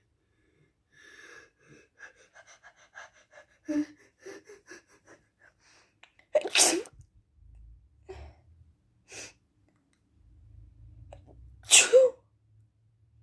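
A person with a heavy cold sneezing: two loud sneezes about five seconds apart, with smaller ones between them. Before the first comes a run of short, quiet catches of breath.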